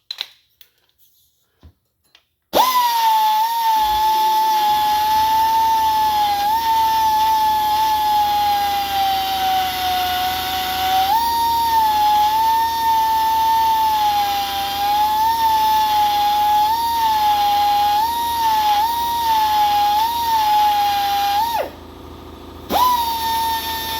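Die grinder with a double-cut burr running at high speed, grinding a crack-repair pin flush on an iron engine block. Its steady high whine sags in pitch and recovers again and again as the burr bites under load. It starts a couple of seconds in, stops about three seconds before the end, then runs again briefly.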